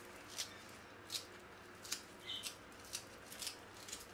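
Kitchen scissors snipping a bunch of fresh parsley over a dish: a series of short, crisp snips, roughly one every half second.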